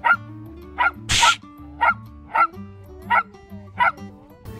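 Small Pomeranian–corgi mix dog barking repeatedly, about six short barks spaced half a second to a second apart, with one harsher burst of noise about a second in. Background music with steady low notes plays underneath.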